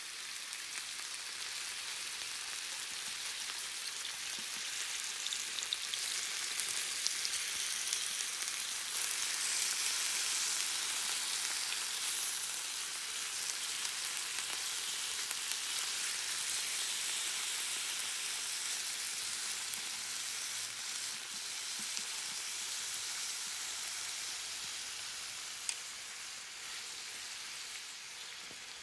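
Thin slices of raw beef sizzling on a hot electric hot plate as they are laid down, the sizzle strongest about ten seconds in and easing off toward the end, with one light click near the end.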